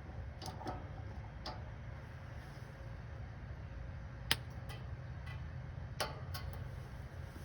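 Steady low hum with a handful of sharp clicks at irregular intervals; the loudest click is just past four seconds in, and another comes about six seconds in.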